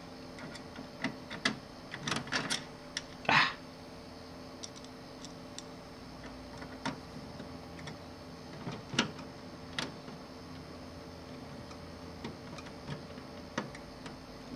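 Hands handling metal and plastic parts inside a TV chassis while lining up and screwing in a part: scattered light clicks, taps and short scrapes. The loudest is a short scrape about three and a half seconds in, and there is a cluster of clicks around two seconds in. A faint steady hum lies beneath.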